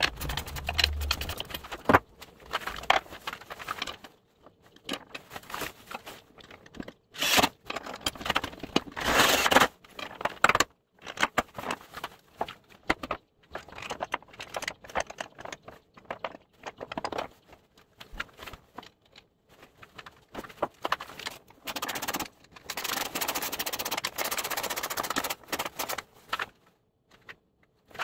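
Hand ratchet clicking in runs as nuts are run down on the U-bolts of a steel ATV plow mount, between metal clinks and scrapes from handling the tool and hardware. The longest run of ratcheting comes near the end.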